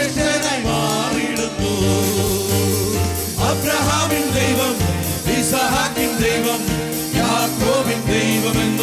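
Live Malayalam Christian worship song: men singing into microphones over keyboard and an electronic drum pad, with a steady bass line and beat.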